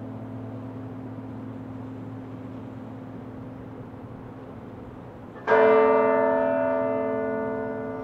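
Halliburton Tower's church bell tolling slowly in a memorial toll: the low hum of the last stroke still rings at first. A single loud strike comes about five and a half seconds in and rings on, fading slowly.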